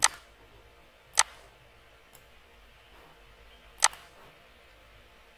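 Computer mouse button clicking: a few sharp single clicks spaced a second or more apart, with a fainter one between them.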